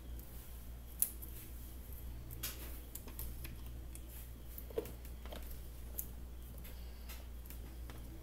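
Light scattered clicks and scrapes of a thin metal tool and fingers working at the plastic carbon-brush holder of a Bosch GSB 20-2 drill, the sharpest click about a second in, over a steady low hum.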